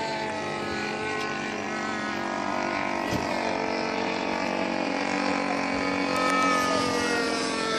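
O.S. .46 LA two-stroke glow (nitro) engine of an RC model airplane in flight, a steady buzzing drone whose pitch bends a little as the plane passes overhead.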